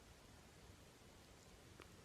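Near silence: faint steady background hiss, with one faint tick near the end.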